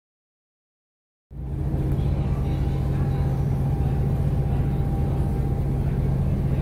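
A moment of dead silence at an edit, then the Staten Island Ferry's engines come in as a steady, loud low drone with a constant hum, holding level as the boat gets under way.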